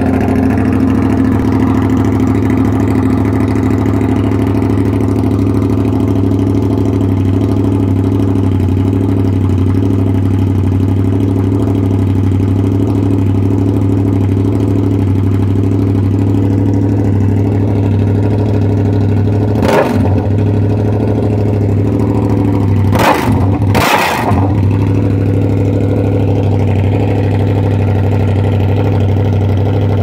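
Z200X motorcycle engine with an Akrapovic M1 exhaust, idling steadily at an even pitch. A few brief sharp noises, about two-thirds of the way through, do not change the engine's note.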